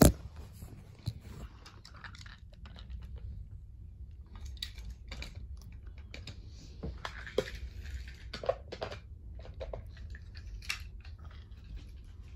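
A sharp click at the very start, then scattered light clicks and rustles over a steady low hum.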